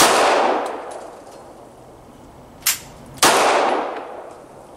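Two semi-automatic pistol shots about three seconds apart, each sharp crack trailing off in a long ringing decay, with a brief thinner crack just before the second shot.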